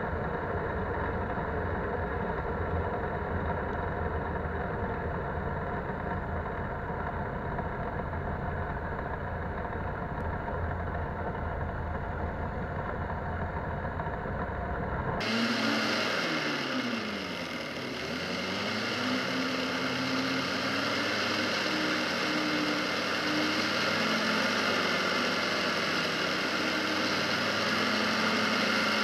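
A Polaris Sportsman 570 ATV's single-cylinder engine runs under way, mixed with rushing ride noise. About halfway the sound changes abruptly. The engine then drops in pitch and climbs back up before running steadily again.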